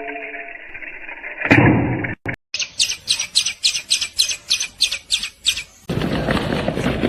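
A loud thud about one and a half seconds in, then a fast run of high, bird-like chirps, about four or five a second, for some three seconds. A steady rushing noise starts near the end.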